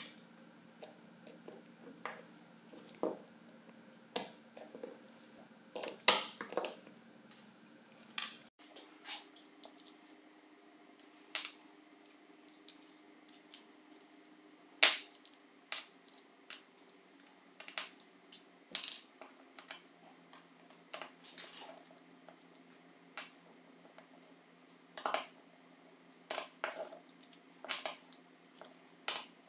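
Irregular small clicks and taps of a metal pick, tweezers and a small flat blade against the plastic gearbox housing and tiny gear parts of a cordless screwdriver being taken apart, with a few sharper clicks among them.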